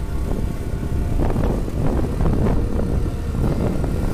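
Wind buffeting the microphone over the low rumble of a moving motorcycle's engine and tyres on the road.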